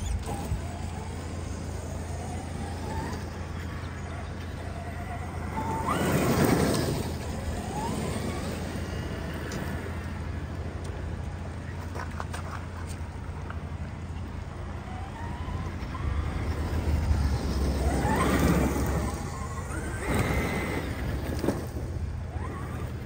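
Traxxas X-Maxx RC monster truck's brushless electric motor whining up and down in pitch as it accelerates and slows on gravel, loudest in two close passes, about six seconds in and again near eighteen seconds.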